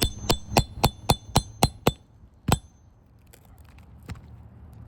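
Hammer tapping a steel nail puller to work a roofing nail out from under an asphalt shingle tab: eight quick ringing metallic strikes at about four a second, then one more after a short pause.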